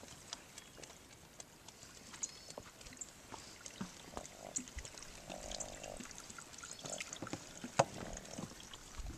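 Footsteps on a wooden plank boardwalk over a bog: scattered knocks from the boards, with wet sloshing as the planks press into the water beneath.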